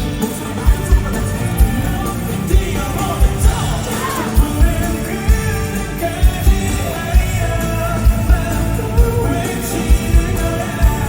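Live pop-rock band playing loudly with a male singer, heavy kick-drum thumps punching through the mix.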